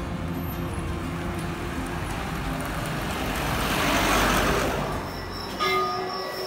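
Road traffic: a steady low engine hum, with a vehicle passing that is loudest about four seconds in. About five and a half seconds in the sound changes abruptly to a short, louder sound with several steady high tones.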